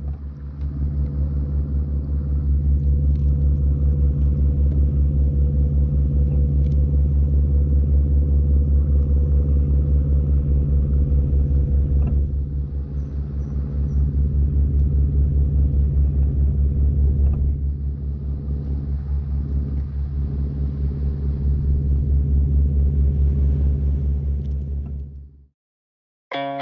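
An engine running steadily with a deep, low rumble and a fast, even pulsing. It cuts off suddenly near the end.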